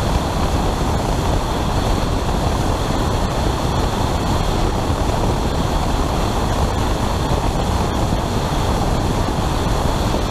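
Steady rushing road and wind noise of a car on the move.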